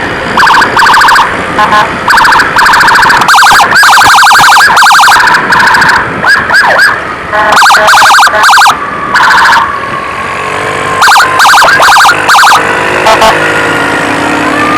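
Ambulance's electronic 'sirine setan' ('devil siren'), very loud, stepping through fast stuttering warble and chirp patterns in short blocks broken by brief gaps, with a steadier tone briefly about two-thirds of the way in.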